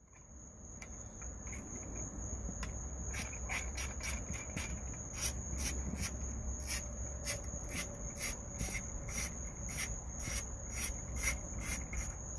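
Insects chirping: a steady high trill with short regular chirps about twice a second.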